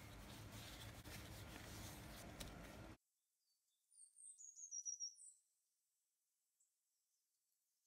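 Faint steady room noise that cuts off abruptly about three seconds in, followed by a quick run of high, short bird chirps about a second later.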